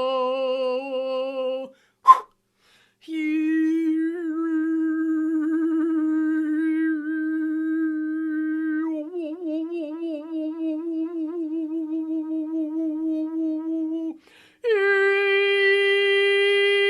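A single voice toning long held vowel notes in a healing sound session, each note steady with a slight waver, interrupted by a brief sharp click about two seconds in. A long low note is followed near the end by a higher held tone.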